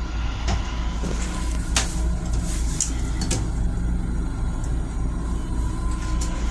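Long Island Rail Road M7 electric railcar running, a steady low rumble heard inside its restroom, with a few sharp clicks and knocks scattered through it.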